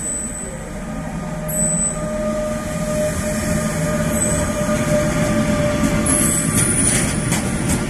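Freight train hauled by a Bombardier Traxx class 186 electric locomotive passing close and growing louder. A steady whine runs under brief high-pitched wheel squeals, and rapid clattering of wheels over rail joints comes in near the end.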